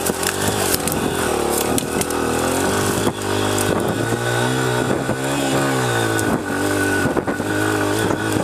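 Honda CRF100F dirt bike's small four-stroke single-cylinder engine revving hard under load up a steep grassy climb, its pitch rising and falling every second or so as the throttle is worked, with scattered clicks over it.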